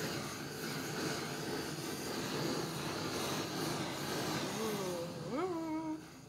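Handheld butane kitchen torch flame hissing steadily, cutting off about six seconds in.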